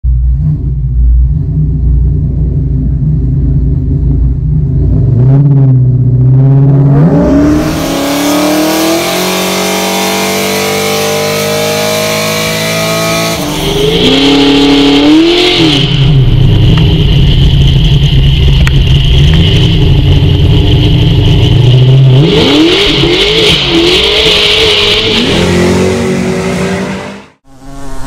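Car engine revving hard under acceleration, its pitch climbing several times and dropping back between climbs, as at gear changes. A steady high squeal runs alongside through the middle and later part, as of tyres spinning and smoking in a burnout.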